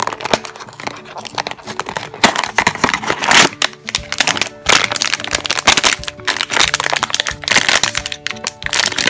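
A cardboard blind box being opened and its foil blind bag handled and torn at, in loud irregular crinkling and crackling bursts, over background music.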